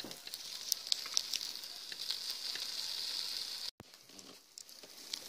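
Shashlik meat and onions sizzling in a wire grill basket over glowing charcoal in a stove firebox, a steady hiss with small crackling pops. The sizzle stops abruptly about three and a half seconds in.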